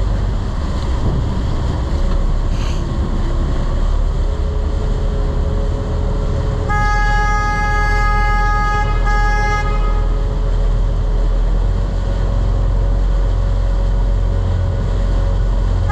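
Steady low rumble of a boat's engines under way, with the churning wake. About seven seconds in a horn sounds one long blast of about two seconds followed at once by one short blast.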